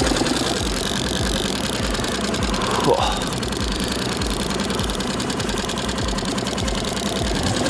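Small boat's outboard motor idling steadily, with a regular low knocking beat.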